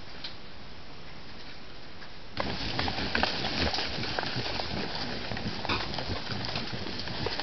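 Steady hiss of a camera trap's microphone, then about two seconds in a herd of peccaries close by: dense rustling and crunching of leaf litter as they root and feed, with many short clicks and brief squeaky grunts.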